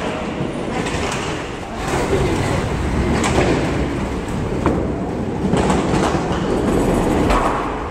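Bowling alley rumble: bowling balls rolling down wooden lanes, a steady low rumble broken by a few sharp knocks and clatters.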